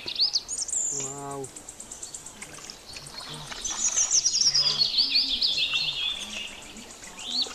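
Wild birds chirping and singing in quick, high, rising and falling calls, thickest in a fast run around the middle that steps down in pitch.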